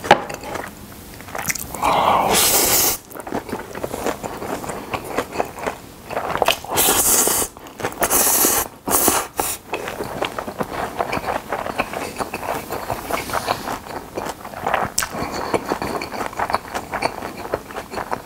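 Close-miked eating of chewy jjolmyeon noodles: three loud slurps in the first ten seconds, then steady wet chewing with the mouth full.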